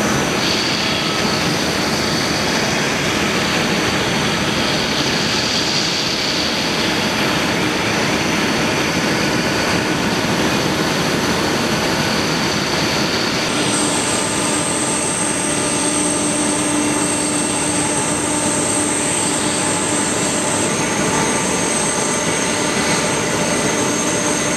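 Boeing 747-400 jet engines running as the airliner taxis: a steady rushing roar with thin high whines. A higher whine comes in about halfway through.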